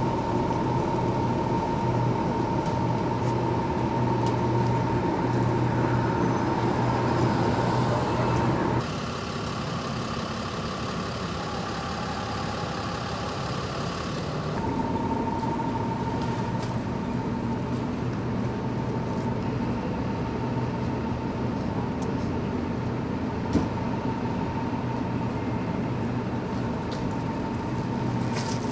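Steady hum of idling fire apparatus engines, with a constant high whine over it. The level drops about nine seconds in and comes back up around fifteen seconds in.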